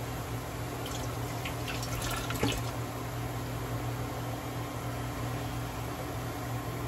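Finely chopped cabbage sizzling softly in a frying pan, with a few faint crackles about a second or two in, over the steady hum of an induction cooktop.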